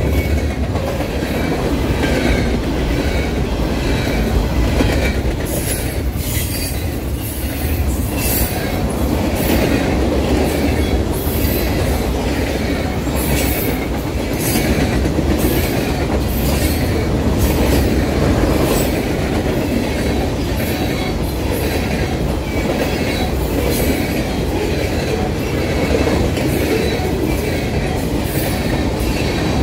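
Freight cars of a passing train rolling by: a steady low rumble of wheels on rail, with quick, irregular clicks as the wheels cross the rail joints.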